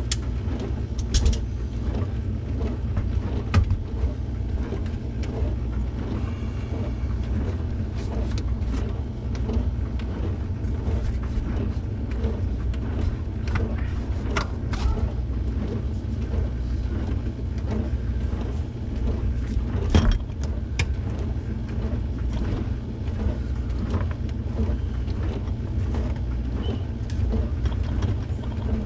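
Truck driving on the road, heard from inside the cab: a steady low engine and road rumble with frequent small rattles and clicks.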